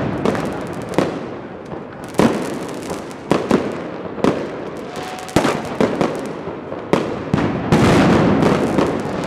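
Fireworks going off overhead: about a dozen sharp bangs at irregular intervals over a constant din of more distant bursts and crackle.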